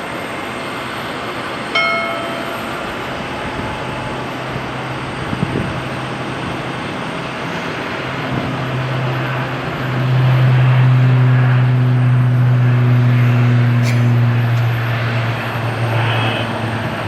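Turboprop airliner taxiing, its propellers giving a low steady drone over the general airport noise; the drone swells about ten seconds in and holds for several seconds before easing. A short beep sounds about two seconds in.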